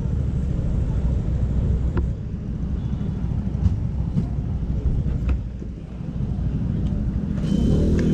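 City street traffic: a continuous low rumble of cars, with a car driving through the intersection about four seconds in. Near the end a louder engine hum with a steady pitch comes in.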